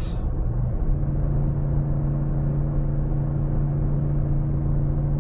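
Ram 1500 pickup's naturally aspirated gas engine pulling steadily under load while towing a heavy travel trailer up a mountain grade, heard from inside the cab over road noise. A steady engine drone settles in about a second in and holds.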